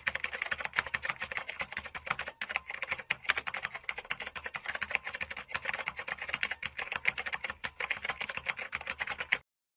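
Typing sound effect: a fast, uneven run of keyboard key clicks, stopping suddenly near the end.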